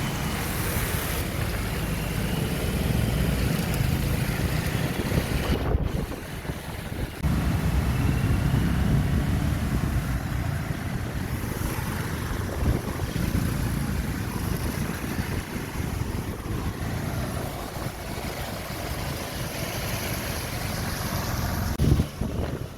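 Floodwater rushing along a street: a steady, loud rush of water with a low rumble and wind buffeting the microphone. The sound drops briefly about six seconds in.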